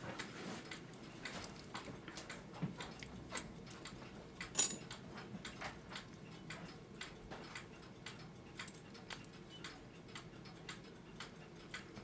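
Early-1900s cuckoo clock movement ticking on the bench, with light, unevenly spaced clicks and one louder click about four and a half seconds in.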